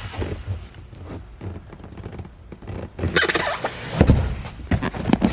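Thunks and knocks of boat seating being handled, likely a seat cushion or lid over under-seat storage being lifted and set down. There is a rustling scrape about three seconds in and a heavy thump about a second later.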